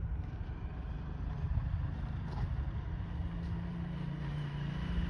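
Distant jet airliner's engines rumbling as it lifts off and climbs, with a steady low drone building up near the end.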